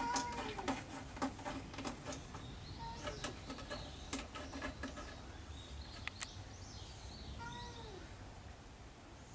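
Orange-and-white cat giving two short meows that fall in pitch, one at the start and one near the end. A run of quick clicks sounds in the first two seconds.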